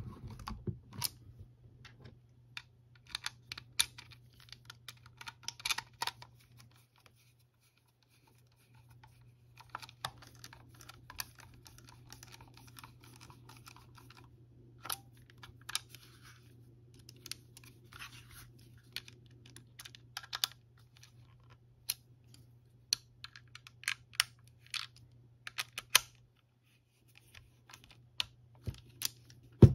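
Irregular small clicks and taps of a clone Makita power-tool battery's plastic case being handled and fitted back together, over a low steady hum.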